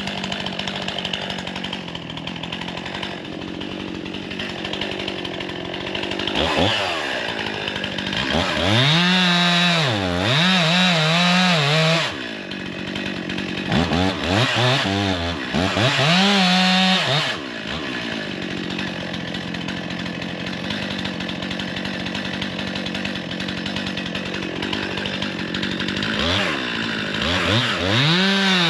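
Two-stroke gas chainsaw idling, then revved to full throttle and cutting into a tree twice, the engine pitch wavering and dipping under load. The saw drops back to idle between cuts, and it revs up again near the end.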